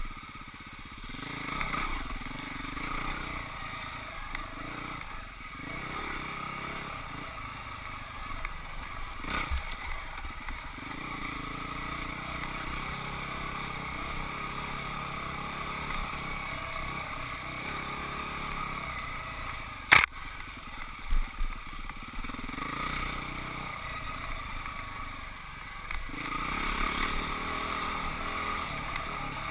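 Husqvarna 449 dirt bike's single-cylinder four-stroke engine running, its revs rising and falling. About twenty seconds in there is one sharp knock, followed shortly by a few smaller thumps.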